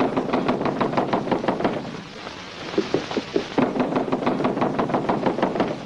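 Rapid, hurried knocking on a wooden door, in two runs with a short pause between.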